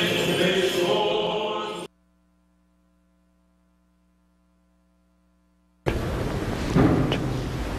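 Chanting that cuts off abruptly about two seconds in, then near silence with a faint steady hum. About six seconds in, loud steady hiss-like background noise starts suddenly, with a brief thump a second later.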